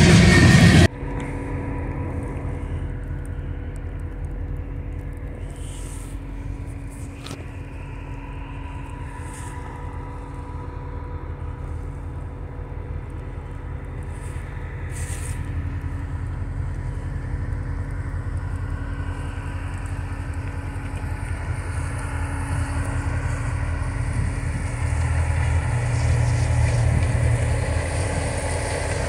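Diesel-electric locomotives moving a rotary snowplow come slowly closer, a steady low engine drone that grows louder toward the end. In the first second a louder passing freight train cuts off abruptly.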